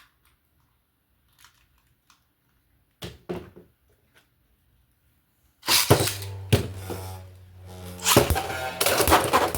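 A few light clicks, then about six seconds in two Beyblade X tops are launched into a stadium and spin with a steady hum, clashing in repeated sharp hits.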